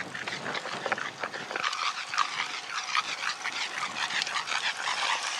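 A Boston terrier making excited whimpering sounds while it runs alongside a bicycle, over a rapid, irregular patter of short clicks. A low rumble underneath drops away about a second and a half in.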